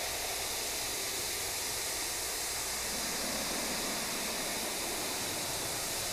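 Steady rushing noise, an even hiss without any distinct tones or beats.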